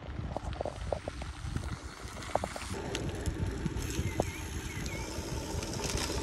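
Bicycle tyres rolling over a gravel road, with wind buffeting the microphone and scattered gravel clicks; the rolling noise thickens about three seconds in. A few faint high chirps come about four seconds in.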